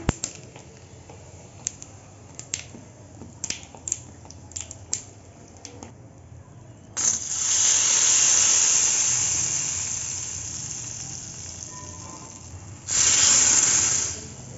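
Hot ghee tempering of cumin seeds and a dried red chilli crackling with scattered pops in a small steel ladle. About halfway through, it is poured into a pan of liquid chana dal curry and sets off a sudden loud sizzle that slowly dies down. A second short burst of sizzling comes near the end.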